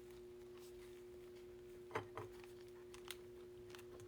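Near silence: quiet room tone with a steady electrical hum and a few faint clicks, the clearest about two seconds in.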